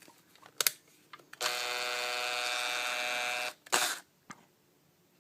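Electric drill with a left-hand drill bit, drilling out a snapped Allen bolt: the motor runs at a steady pitch for about two seconds. A sharp click comes before it, and a short loud burst of noise follows just after it stops.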